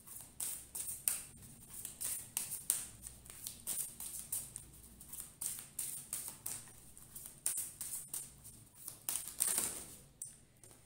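Oracle cards being shuffled by hand: a rapid, irregular run of crisp card flicks and slaps, with a longer swish near the end.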